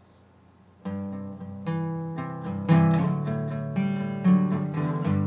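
Acoustic guitar coming in about a second in, playing strummed chords as the instrumental intro of a song.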